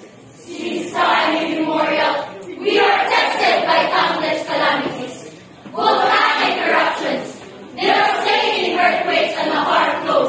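A large group of voices chanting together in unison, in four loud phrases with short breaks between them.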